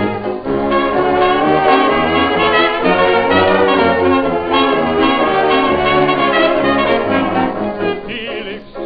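A late-1920s jazz dance orchestra playing an instrumental passage led by trumpets and trombones, heard from a 78 rpm record with its dull, narrow sound. Near the end the band drops back and gets quieter.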